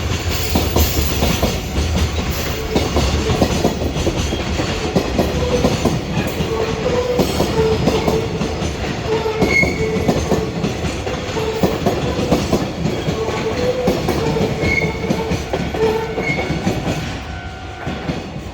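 Container freight train rolling past, its wagon wheels clattering over the rail joints in a steady rumble, with short high tones coming and going. The sound fades away near the end as the train moves off.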